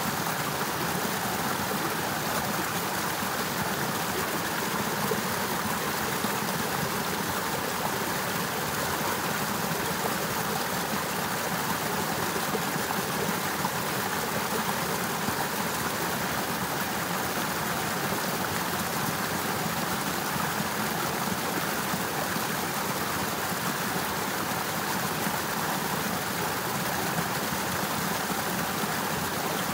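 Water of a partly frozen river rushing steadily, an even running sound with no breaks.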